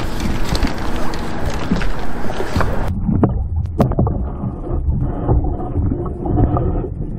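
Strong wind buffeting the microphone on an open fishing boat, with crackling noise. About three seconds in it cuts abruptly to the muffled audio of an underwater camera: a low rumble with a few sharp knocks.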